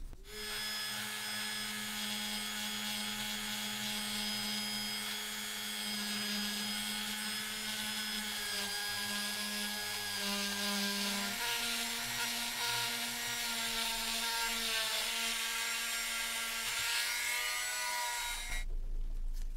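Rotary tool with a felt polishing wheel running steadily, buffing a small brass lamp part with polishing paste. Its whine steps slightly in pitch about halfway through, and it stops about a second before the end.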